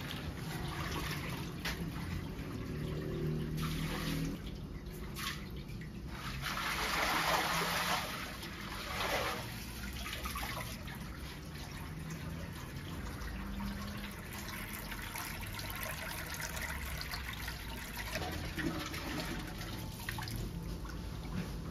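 Tap water running in a steady stream into a large stainless-steel dough-mixer bowl, with louder splashing for a couple of seconds about a third of the way in as hands are rinsed under the stream.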